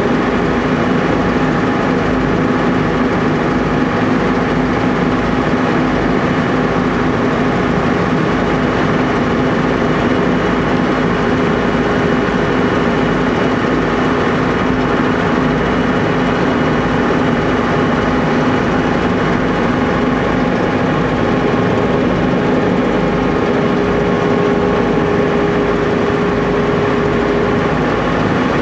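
Tour boat's engine running steadily under way, heard from the back of the boat: a loud constant drone with a steady low hum, over a continuous rushing noise.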